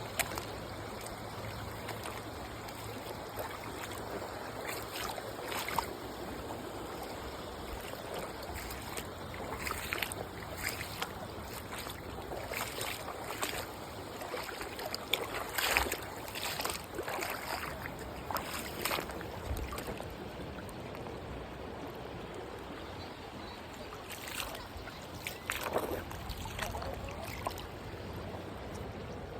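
River water running steadily, with scattered short knocks and splashes through the middle and again near the end.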